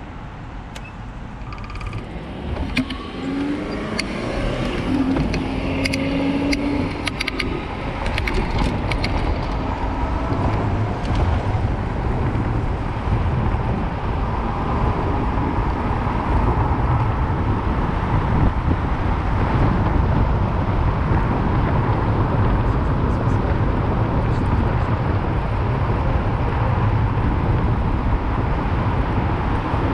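Bicycle setting off from a stop and riding along a city street: at first a few sharp clicks and passing car traffic, then from a few seconds in a steady, louder rush of wind and tyre noise with a low rumble on the handlebar-mounted camera.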